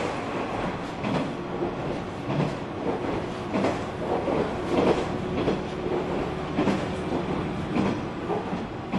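Running noise inside a KiHa 120 diesel railcar: a steady diesel drone under the rumble of the wheels, with uneven knocks as the wheels pass over rail joints.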